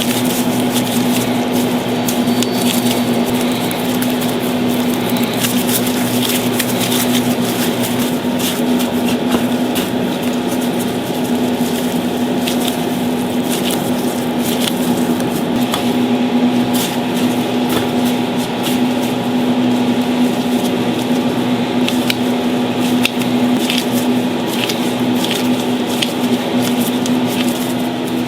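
A steady machine hum under many small clicks and squishing sounds of food being handled and prepared.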